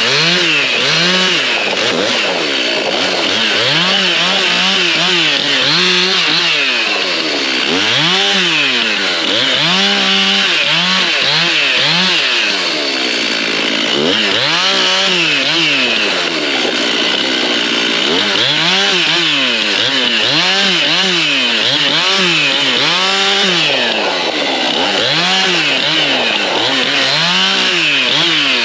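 Stihl MS 391 two-stroke chainsaw cutting limbs off a felled hardwood tree, its engine revving up and dropping back over and over, roughly once a second, with each short cut.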